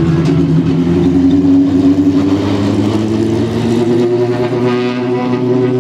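Single-seater racing car's engine running at low, fairly steady revs as the car pulls away slowly down the pit lane, its pitch dipping a little then rising a little.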